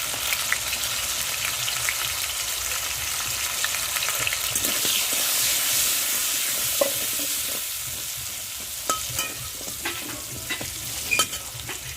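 Potato pieces frying in hot oil in a kadai (wok), a steady sizzle with salt and turmeric just stirred in. A few sharp knocks come in the second half.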